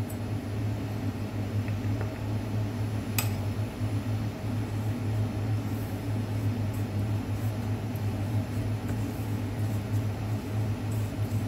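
Steady low hum of a fan or appliance running, under the soft scrape of a silicone spatula mixing biscuit crumbs with melted butter in a stainless steel bowl. There is one sharp click about three seconds in.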